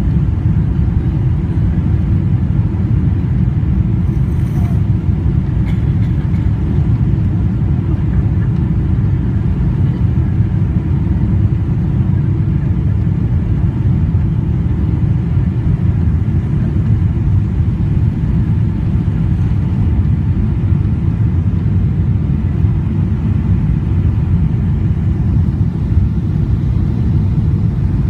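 Airliner cabin noise in flight: the steady, even rumble of the jet engines and airflow heard from inside the cabin, with a faint hum above it.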